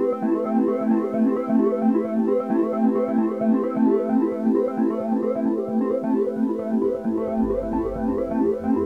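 Background music: a bright keyboard tune of quick, steady notes, with a bass line coming in near the end.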